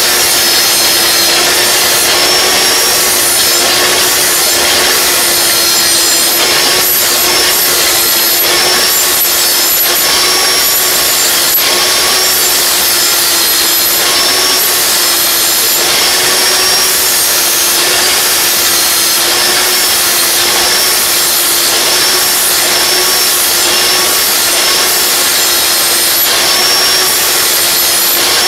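Corded angle grinder with a 40-grit ceramic flap disc grinding the cutting edge of a steel lawn mower blade to sharpen it. A steady high motor whine runs over a harsh grinding hiss, the pitch sagging slightly and recovering every couple of seconds as the disc is worked along the edge.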